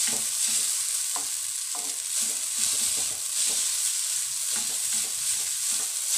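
Yellow egg noodles frying in hot oil in a non-stick wok with a steady sizzle, tossed and scraped with two spatulas in repeated strokes, about two or three a second. The noodles are being fried until they char slightly.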